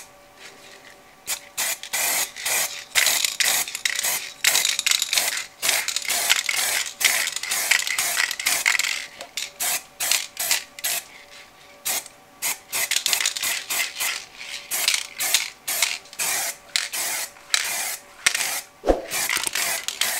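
Aerosol spray can of filler primer hissing, released in many short bursts with a longer stretch of near-continuous spraying early on, as a first coat goes onto a plastic model hull. A single sharp click comes near the end.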